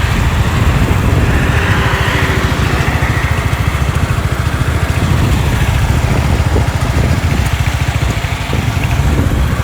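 Motorcycle engine running steadily while riding, a low even pulsing, with rushing wind noise over it.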